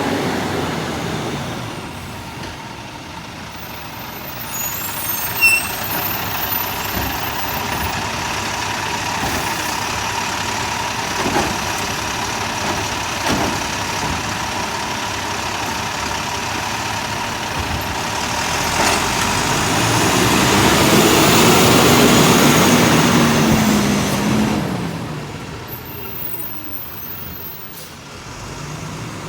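Garbage truck running, with a short sharp knock about five seconds in. Later, from about 18 s, its engine revs up for several seconds and then settles back down.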